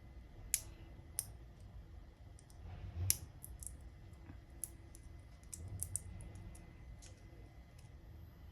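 Scattered sharp clicks and ticks at uneven intervals from hand tools cutting and trimming a thin plastic part, with a few louder snaps about half a second, a second, and three seconds in.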